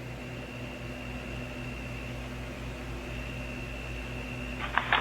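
Steady low electrical hum and hiss with a faint, thin high-pitched whine, unchanging throughout; a few clicks come in near the end.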